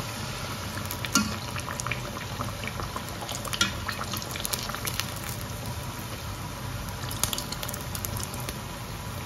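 Battered banana slices deep-frying in hot oil: a steady bubbling hiss with many small pops and crackles scattered through it.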